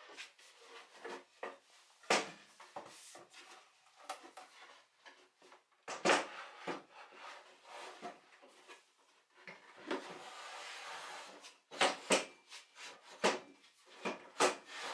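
A plywood cabinet being handled and slid into a steel-framed rolling cart: several sharp wooden knocks and bumps, with a scraping slide about ten seconds in.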